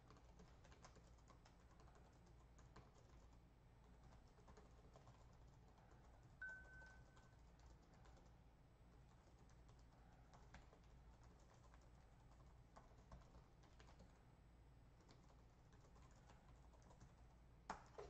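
Faint computer keyboard typing and clicks. There is a brief steady high beep about six seconds in and a louder run of clicks near the end, over a low steady hum.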